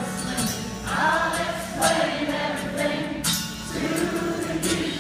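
Many voices singing a wordless melody together, choir-like, over acoustic guitars and horns: a concert crowd singing along with an acoustic band.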